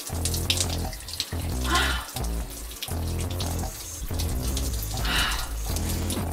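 Shower spray running and splashing as a person rinses off under it, with background music of deep held notes.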